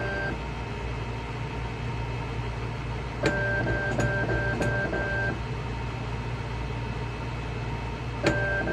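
Leica ST4020 linear slide stainer running: a steady low hum, with a click and then about two seconds of evenly pulsed, two-pitch mechanical whirring as its drive steps the slide holders along the track. The click and pulsing start again near the end.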